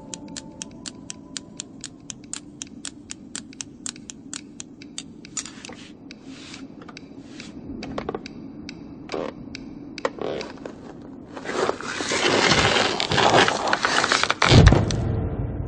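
Knitting needles clicking quickly and steadily, about four clicks a second, thinning to scattered clicks after about five seconds. About eleven seconds in, a loud, rough scraping sets in as the long knitted piece slides over a rock edge, with a heavy thump near the end.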